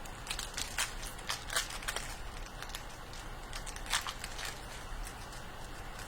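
Trading card pack wrappers crinkling and crackling as the packs are torn open and handled: a run of sharp, irregular crackles, thickest in the first two seconds and again around four seconds in.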